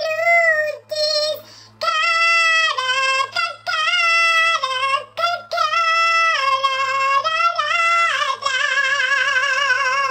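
A woman singing alone in a high voice, held notes broken by short pauses, closing on one long note with vibrato for the last couple of seconds.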